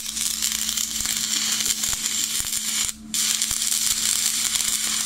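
Stick-welding arc from a 3.25 mm rod electrode burning on thick flat steel: a steady, dense crackle and sizzle that drops out for a moment about three seconds in, then runs on. The arc runs smoothly and fluidly because the workpiece is already hot.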